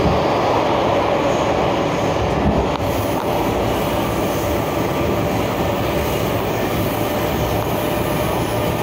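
Baltimore Metro SubwayLink train running at speed, heard from inside the car: a steady rumble of wheels on rail with a faint steady whine. About three seconds in the sound opens up and brightens as the train leaves the tunnel.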